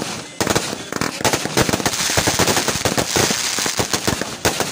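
Aerial fireworks going off in rapid succession: many sharp bangs and crackles overlapping, with a denser crackling hiss around the middle.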